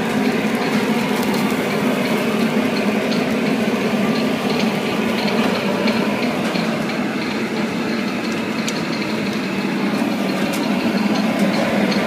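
Steady mechanical hum of a busy taqueria kitchen, from the gas broiler and ventilation by the al pastor spit, with a few light clicks of utensils.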